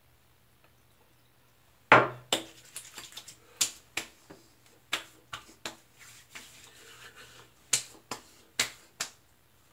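Hands slapping and patting aftershave splash onto a freshly shaved face. There is no sound for the first two seconds, then one loud slap, followed by a string of lighter, sharp pats, about two or three a second.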